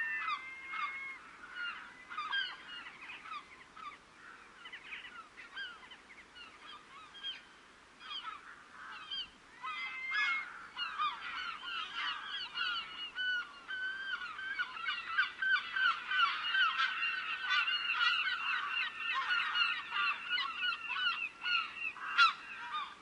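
A flock of gulls calling, with many short overlapping cries. The calls are scattered at first, then thicken from about halfway in into a dense, continuous chorus. A sharp click comes near the end.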